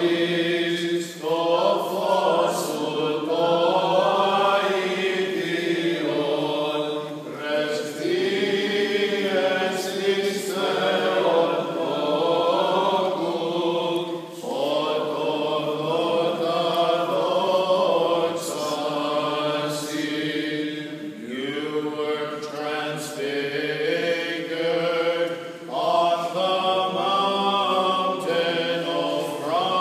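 Byzantine-style Orthodox chant: voices singing long, held melodic phrases, with a short break between phrases every five to seven seconds.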